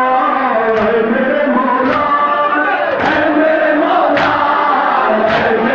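Crowd of men chanting a Muharram mourning chant together, with a sharp collective matam, hands beaten on chests, landing about once a second in a steady rhythm.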